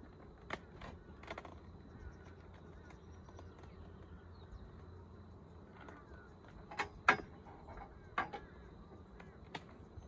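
Ratchet tie-down strap being released and pulled off a beehive: scattered clicks and a few sharp metallic clacks from the buckle, the loudest about seven seconds in.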